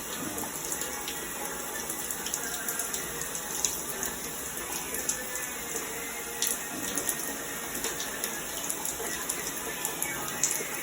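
Hot water running steadily from a bathroom tap, turned on to check that hot water comes through.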